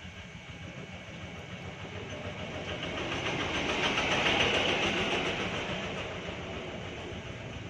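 A vehicle going by: a rushing, finely rattling noise that swells to a peak about four to five seconds in and then fades away.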